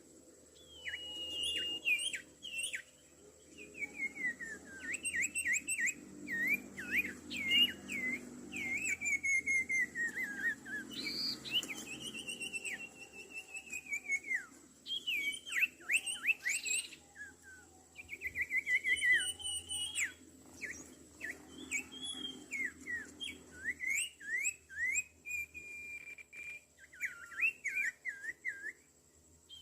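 Small songbirds calling busily: fast strings of whistled chirps and downslurred notes, with a short pause about two-thirds of the way through.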